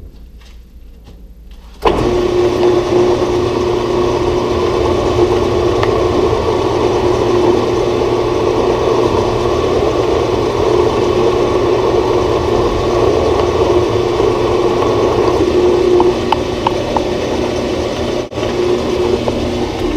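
Grizzly G0602 metal lathe switched on about two seconds in and running steadily with a constant hum, spinning a steel workpiece while a center drill in the tailstock chuck is fed into its end. The sound eases slightly near the end.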